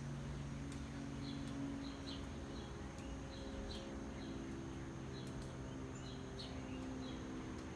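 Small birds chirping: short, high, downward chirps repeating every half second or so. A steady low hum runs underneath.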